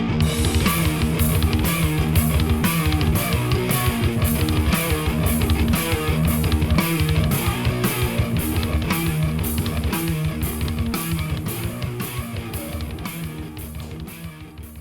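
Guitar-driven rock intro music with a steady, fast beat, fading out near the end.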